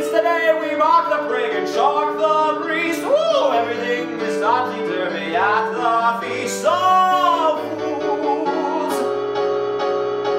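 A man singing a lively show tune over an instrumental backing track. About three-quarters of the way through the voice stops, and the backing holds a sustained chord to the end.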